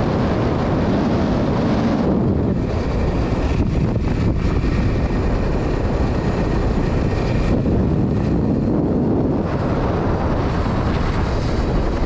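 Steady wind rush buffeting the microphone on a moving motorcycle, with the motorcycle running along the road underneath.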